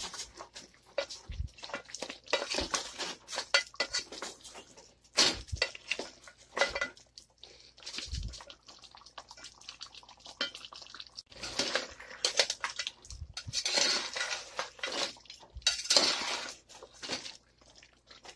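A spoon stirring and scraping mutton and ground spices around a cooking pot during the bhuna stage of a korma, with irregular metallic clinks, scrapes and a few dull knocks against the pot.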